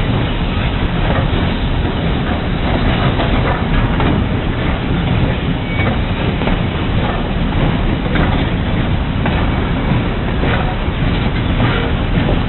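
Steam-hauled train running, heard from aboard close behind the locomotive: a steady rumble and rush of noise with wheels clicking over the rail joints.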